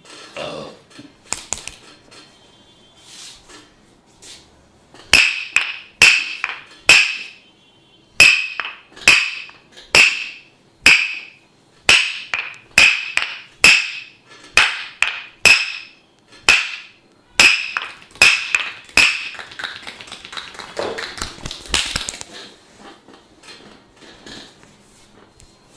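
Percussive massage strikes on the body: a long run of sharp slapping hits, about two a second, after a few softer taps. Near the end the hits give way to a softer rubbing sound.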